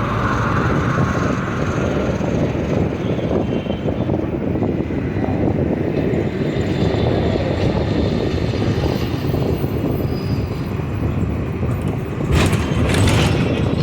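Steady rumble of road traffic, with a brief louder hiss near the end.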